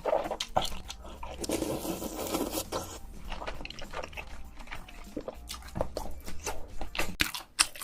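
Close-miked eating: a person biting and chewing food, with irregular crunches and wet mouth sounds.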